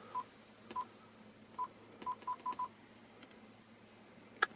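Touch-feedback beeps from the Eonon R80 touchscreen head unit as its screen is tapped: seven short, single-pitch beeps, four of them in quick succession about two seconds in. A sharp click near the end.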